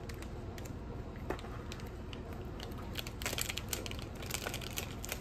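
A plastic snack packet crinkling and crackling as it is handled and pulled open by hand, with the crackles thickest about three seconds in.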